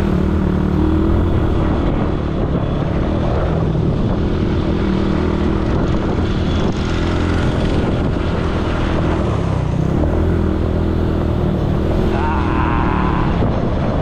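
ATV engine running steadily under way, a loud, even low engine note with only slight changes in pitch.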